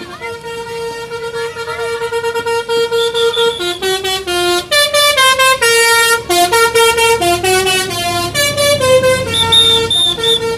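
Bus 'telolet basuri' musical air horn playing a tune: a held note that steps down and up through several other notes, growing louder about four seconds in.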